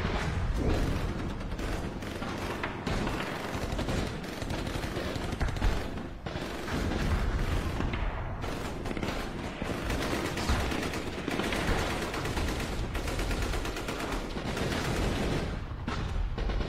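Continuous volleys of gunfire, many rapid shots crowding together in automatic bursts, with music faintly underneath.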